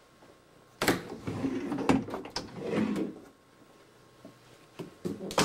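A door being opened and shut: a sharp knock about a second in, a couple of seconds of rattling and scraping, then a few clicks and a louder knock near the end.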